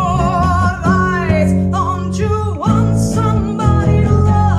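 A woman singing with a wavering vibrato, accompanied by an acoustic guitar and an electric bass.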